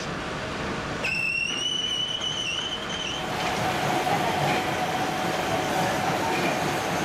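A motor-driven spinning barrel machine, loaded with a basket of steel motorcycle rim spokes, starting up. A whine begins about a second in and rises slightly in pitch as the basket spins up. It then settles into a steady hum with a rushing noise as the basket turns at speed.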